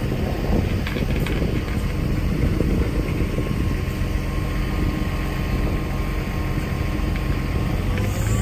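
Self-propelled trailer's diesel engine running steadily, with wind buffeting the microphone.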